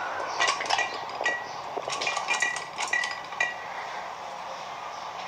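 A quick run of light clinks, about ten of them over three seconds, several ringing briefly like small pieces of metal or glass knocking together, over a steady background hiss.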